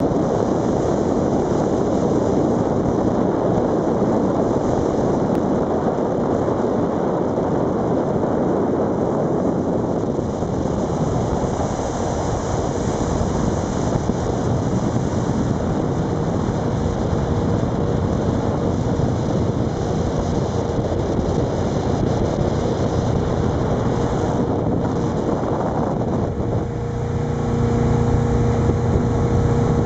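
Wind buffeting the microphone and water rushing past the hull of a 1989 Thompson Carrera 220 motorboat under way, with its new engine running underneath at part throttle while it is still being broken in. Near the end the engine's steady drone and the churn of the wake come through louder.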